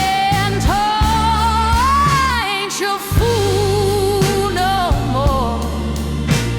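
Slow blues music: a sustained lead melody that slides up into each long note and wavers with heavy vibrato, over a steady bass line and occasional drum hits.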